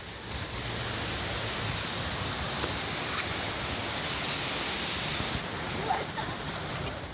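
Strong wind blowing, a steady rushing hiss with a low rumble beneath it.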